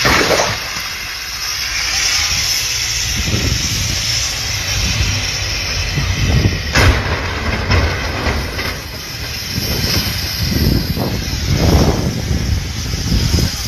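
Steady rumble and hiss of road vehicles on a snowy highway, with a sharp knock about seven seconds in.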